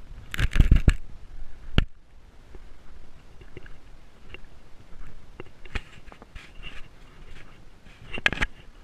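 Bicycle ride over a paving-stone road heard through a camera on the bike: irregular knocks and clattering jolts, loudest about half a second in and again near the end.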